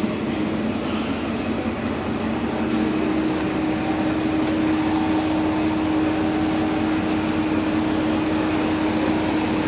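Sanriku Railway diesel railcar running, heard from inside the passenger car: a steady rumble with an engine hum, and a second steady hum that comes in about two seconds in.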